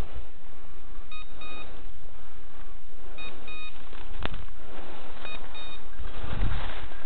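Electronic beeper collar on a hunting dog, sounding short double beeps about every two seconds over a steady hiss. A single sharp click comes about four seconds in.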